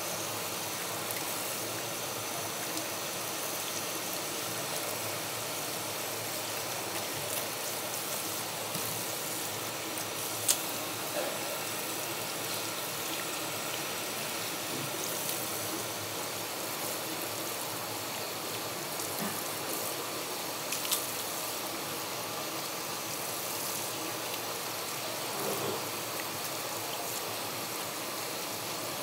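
Steady rush of running water, broken twice by a short sharp knock.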